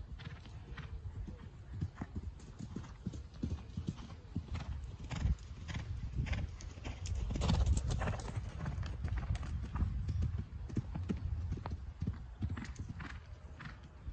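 A horse's hoofbeats cantering on a soft arena surface, a steady run of dull thuds. They grow loudest about halfway through as the horse passes close by, then fade as it moves away.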